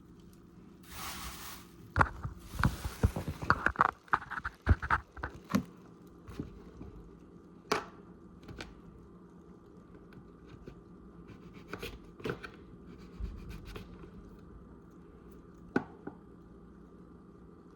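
Kitchen work on a counter: a brief hiss about a second in, then a quick run of knocks, clicks and scrapes of utensils and cookware for a few seconds, followed by scattered single clicks over a faint steady hum.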